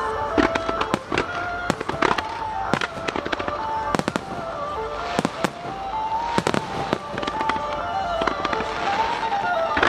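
Aerial fireworks bursting over and over, many sharp bangs and cracks at irregular intervals, with a melody of music playing along.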